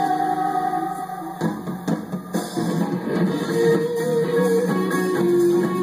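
Live rock band playing, electric guitar to the fore over bass and drums, with a brief drop in loudness about a second and a half in.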